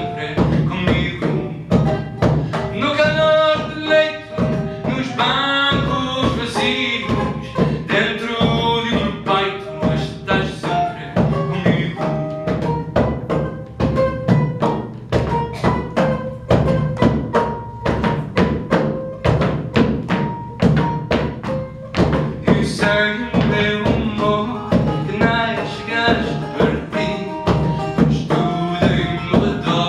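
Live fado performance with bouzouki and double bass: a steady strummed rhythm under a voice singing in phrases during roughly the first ten seconds and again from about 23 seconds in, with a mostly instrumental stretch of held melody notes in between.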